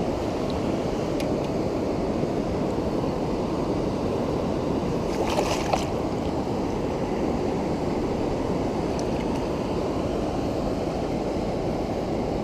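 Steady rushing of shallow river current over stones, with a brief scuffle of splashing about five seconds in.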